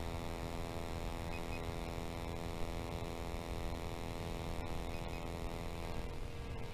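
SJRC F11 4K Pro quadcopter's motors and propellers humming steadily in flight, one even multi-toned hum that holds a constant pitch as the drone creeps forward.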